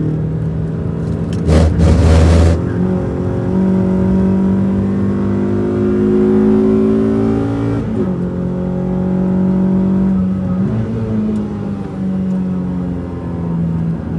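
Renault Twingo RS's engine under load on track, the revs climbing for several seconds and dropping sharply at a gear change about eight seconds in, then shifting again a couple of seconds later. About a second and a half in, a loud rough rushing burst lasting about a second stands out over the engine.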